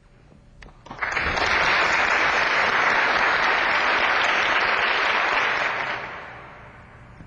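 Applause, starting suddenly about a second in, holding steady, then fading away over the last couple of seconds.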